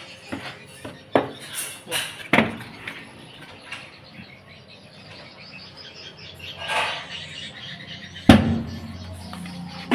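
Several sharp knocks and clatters, the loudest about eight seconds in with a short low ring after it.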